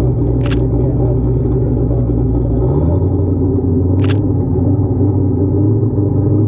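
A car engine running steadily at idle with a low rumble that lightens about two and a half seconds in. Two camera shutter clicks, about three and a half seconds apart.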